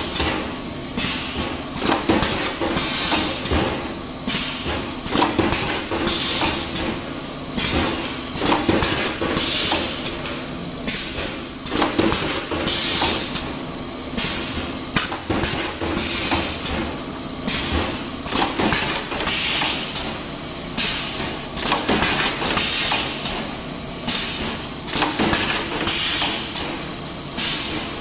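Wire ring forming and welding machine running through its cycle, with a knock and a stretch of hiss repeating about every three seconds over a steady hum.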